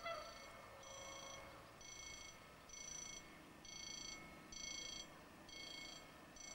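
Faint electronic railway warning bell ringing, a high-pitched ring about once a second, the signal that a train is approaching.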